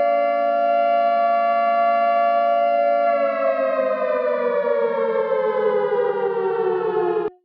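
Civil defense siren sounding a loud steady tone, then winding down, its pitch falling steadily from about three seconds in until it cuts off abruptly near the end.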